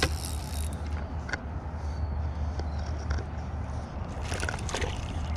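A hooked crappie splashing at the water's surface beside a boat while it is reeled in: a few short splashes, the clearest about four seconds in, over a steady low rumble.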